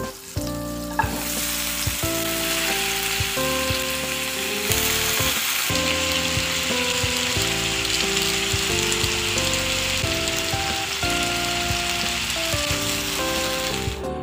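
Hot oil sizzling steadily in a non-stick frying pan as strips of raw potato fry into homemade fries. The sizzle sets in about a second in and grows brighter a few seconds later.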